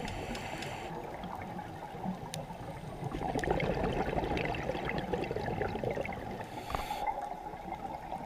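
A scuba diver breathing underwater through a regulator, heard from the camera: a rush of exhaled bubbles gurgles and crackles from about three seconds in and cuts off near seven seconds.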